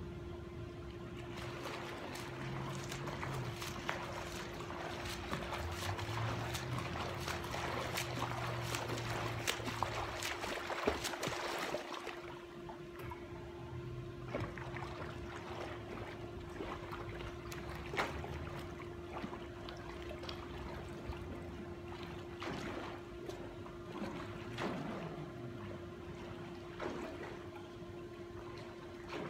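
Pool water splashing and trickling as a person swims, busiest in the first half and lighter after, with a steady hum underneath.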